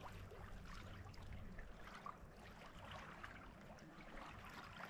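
Faint lapping and trickling of shallow water close to the microphone, with small scattered ticks of water; otherwise near silence.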